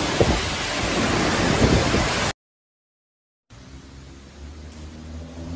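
Heavy storm rain and wind hissing hard against the microphone, cut off abruptly by about a second of dead silence. Then quieter steady rain with a low hum underneath.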